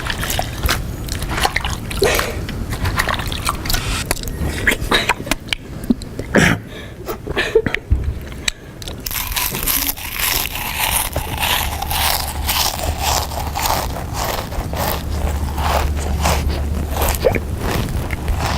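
A person chewing and biting food loudly with their mouth, with many crunching crackles in quick succession, deliberately noisy eating as a prank.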